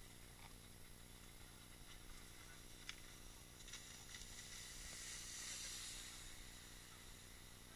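Faint hiss of water spray from a wakeboard carving past, swelling about five seconds in and fading, with a single click near three seconds in.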